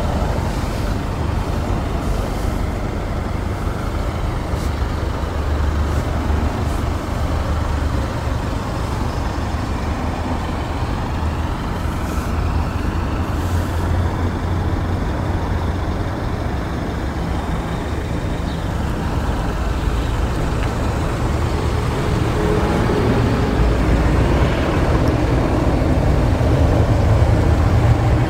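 Range Rover Velar's 2.0-litre four-cylinder turbodiesel idling with a steady low rumble, growing a little louder near the end, over outdoor traffic noise.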